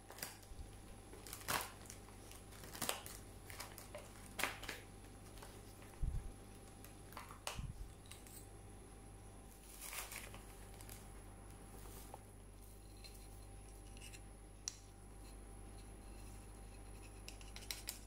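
Stiff kraft paper bag of loose dried tea being opened and handled: scattered crinkles and rustles of paper with several sharp clicks, the loudest in the first half, and quieter rustling after about ten seconds.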